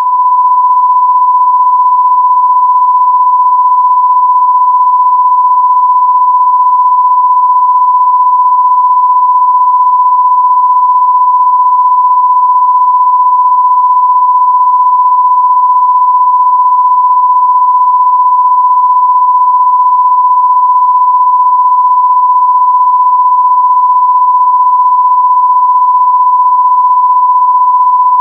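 A loud, steady electronic tone: a pure sine-wave beep held at one unchanging pitch, without a break.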